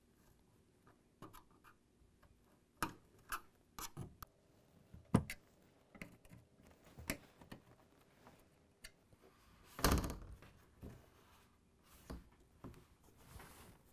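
Scattered small clicks and knocks of a BMW E90 sunroof sunshade and its plastic slides shifting in the roof track as the panel is worked loose by hand, with a louder knock about ten seconds in.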